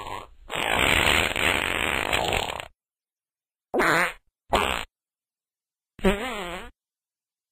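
A run of separate fart sounds with dead silence between them: the end of one right at the start, a long airy one of about two seconds, two short quick blasts, and a final one under a second long with a wavering, fluttering pitch.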